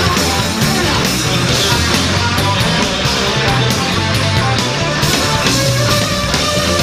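A rock band playing loud and live, with electric guitar, bass and drums in a dense, driving song.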